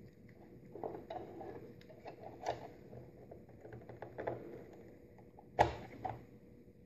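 Light plastic clicks and rustles as a 1/6 scale action figure is handled and set onto its plastic display stand, with a sharper knock about five and a half seconds in and a smaller one just after.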